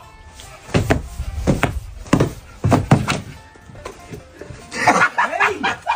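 Four dull thuds, about two-thirds of a second apart, over background music, then a brief burst of excited voices near the end.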